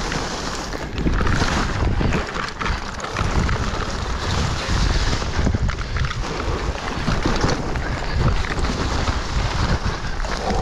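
Mountain bike descending a dirt trail covered in dry leaves: heavy wind rumble on the microphone over tyre noise, with frequent small clicks and rattles from the bike as it rolls over the rough ground.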